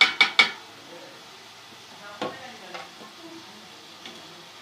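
Bread gulab jamun frying in ghee on a low flame, a steady sizzle. A spoon knocks against the pan twice at the start and again about two seconds in as the dumplings are turned.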